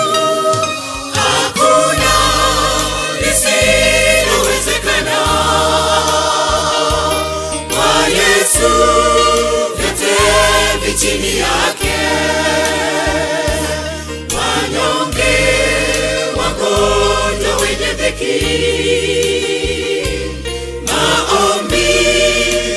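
Church choir singing a Swahili gospel song over a steady bass line whose low notes change about once a second.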